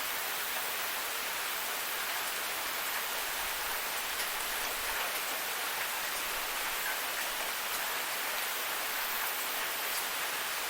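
Waterfall: a steady, even rush of falling water, bright and hissy, with no change throughout.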